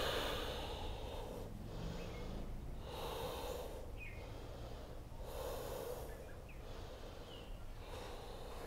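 A person breathing slowly and audibly during a yoga flow, several unhurried breaths, each a soft rush of air.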